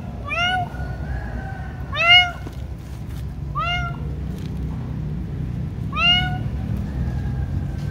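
Cat meowing: four short, rising meows a second or two apart, the second the loudest, over a steady low background rumble.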